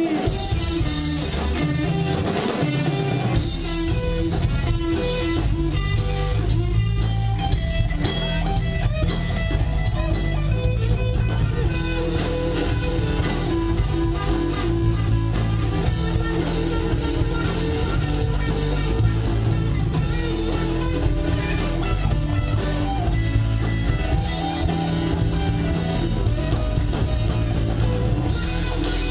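Live rock band playing an instrumental stretch on electric guitars and drum kit, at a steady beat with no singing.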